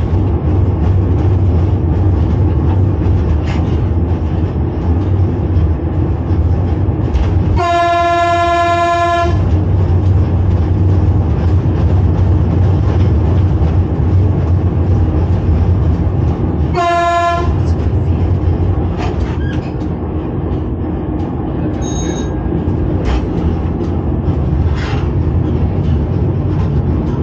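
A 1981 Reko-ET electric railcar running, heard from the driving cab as a steady low rumble with a few faint wheel clicks. The train's whistle sounds twice: a blast of about a second and a half about eight seconds in, and a short toot about seventeen seconds in.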